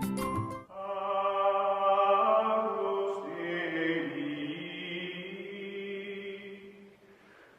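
Music of chanting voices holding long, steady notes. It fades out near the end. A brief bit of percussive music cuts off just under a second in.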